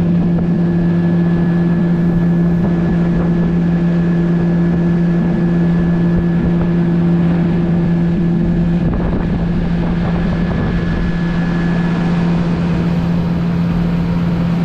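Outboard motor on a small aluminium fishing boat running steadily at cruising speed, a constant hum over the rush of water and wind.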